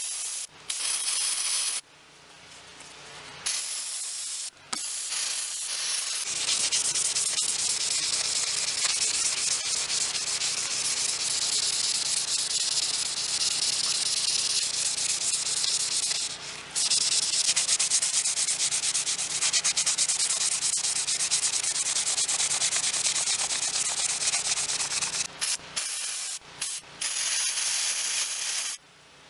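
Aerosol can of brake cleaner spraying through a carbon-fouled rifle gas tube, flushing the carbon out: a loud, even hiss in a few short bursts, then long steady spraying with one brief break, then short bursts again near the end.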